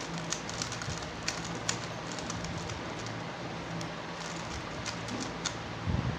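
A 3x3 Rubik's cube being turned fast with finger tricks through a run of R and U moves: quick, irregular plastic clicks and clacks of the layers, in two flurries with a sparser stretch between them. A low thump near the end.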